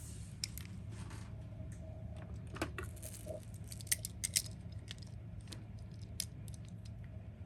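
Die-cast toy cars clicking and clinking against one another as they are handled: a scatter of light, sharp clicks, with a few louder ones near the middle, over a steady low hum.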